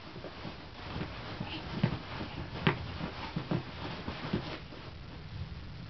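Scattered soft crunches and scuffs of a child moving about in snow, a handful of irregular ones, the sharpest about two and a half seconds in, over a steady low rumble.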